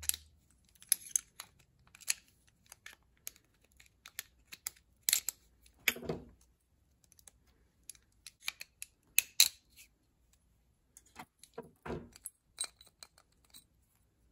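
Small metal parts of a Ford flathead distributor (shaft, advance weights and plate) clicking and clinking as they are handled and pulled apart on a metal workbench. The ticks and light knocks come irregularly, with a few louder ones about halfway through.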